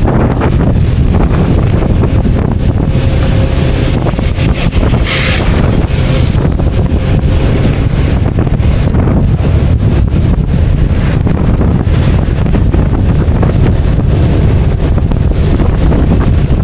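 Steady wind buffeting on the microphone of a Yamaha motor scooter riding at about 35 km/h on a wet road, a deep rumbling roar. A brighter hiss rises briefly about five seconds in.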